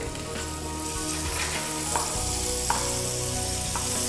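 Diced pancetta sizzling as it fries in olive oil in a frying pan, stirred with a wooden spatula that knocks and scrapes against the pan a few times.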